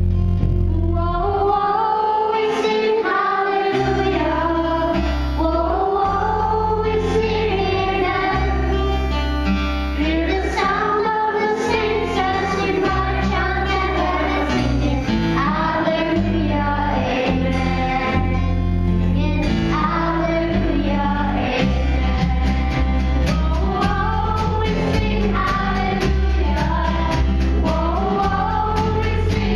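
A choir singing a song with instrumental accompaniment and sustained bass notes underneath.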